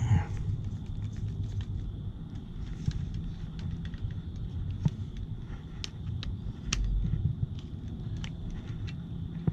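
Scattered small clicks and light knocks of hand work on a GFCI outlet's terminal screws and wires, over a steady low hum.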